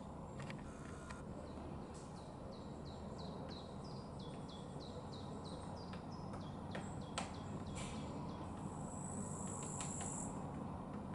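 Woodpecker pecking at oak bark: single sharp knocks at uneven intervals, not a drumming roll. Under it, a small songbird sings a run of about a dozen short falling notes, and a high, steady buzzing tone sounds near the end.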